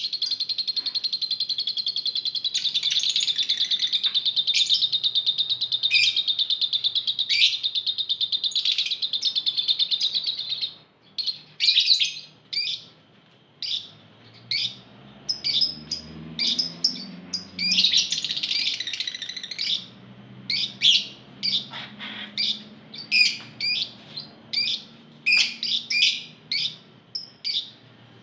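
A flock of caged Fischer's lovebirds calling. For about the first ten seconds a long, rapid chattering trill runs unbroken: the long 'ngekek' that lovebird keepers prize. It stops suddenly, and the birds go on with sharp, separate chirps, one or two a second, with a burst of overlapping calls about two-thirds of the way through.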